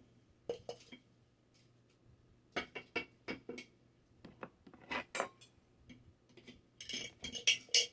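Scattered light knocks and clinks of a glass jar against a food processor's plastic bowl as soaked rice is emptied into it, with a denser flurry of clinks near the end.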